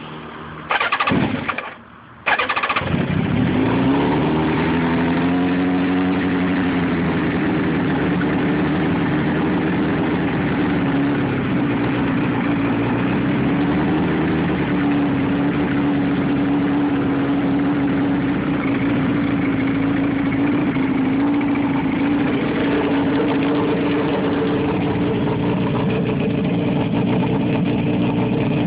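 1988 Yamaha FZR1000 inline-four on a cold start: after a brief burst and a second's pause, it fires about two seconds in, its revs rise and ease back, and it settles into a steady idle through an aftermarket slip-on exhaust.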